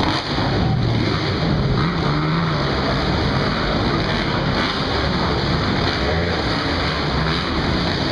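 Several motocross dirt bike engines running and revving as the bikes race around the track, their pitch rising and falling through a constant blur of noise.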